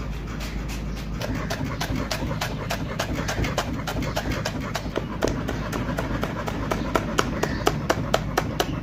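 Kitchen knife chopping fresh coriander and green chillies on a cutting board: quick, steady strokes about five a second, each a short knock of the blade on the board. The knocks get sharper and louder near the end.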